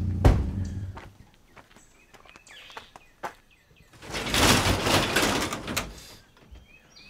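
A pickup truck's idling engine dies away in the first second after a sharp click. Birds chirp in a quiet yard. Then an overhead garage door rattles loudly for about two seconds as it is pushed open.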